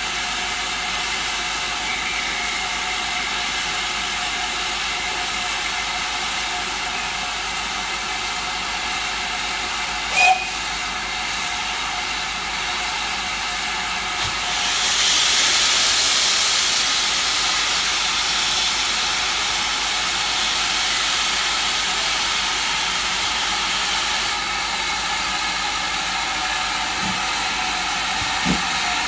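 Steam hissing steadily from the cylinder drain cocks of GWR Manor class 4-6-0 steam locomotive No. 7822, growing louder for several seconds from about halfway as the engine starts to move off. There is a single sharp click about a third of the way in and a couple of low thumps near the end.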